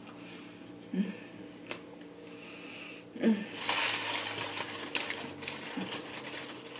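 Paper burger wrapper crinkling and rustling as it is handled, starting about three and a half seconds in after a quiet stretch.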